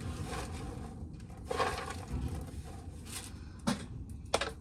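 Dried corn being shelled off the cob by hand: faint rubbing and rustling, with a few sharp clicks of kernels dropping into a bucket near the end.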